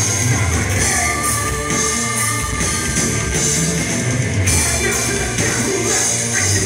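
Live rock band playing a song: a male lead singer over electric guitars and a drum kit, loud and continuous.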